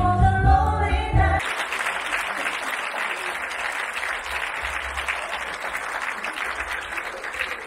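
A song with singing and backing music stops abruptly about a second and a half in, and the audience applauds for the rest of the time.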